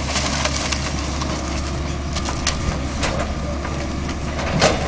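Demolition machine's engine running steadily under a noisy clatter of debris, with a few scattered sharp cracks and knocks as the remains of the building are broken up.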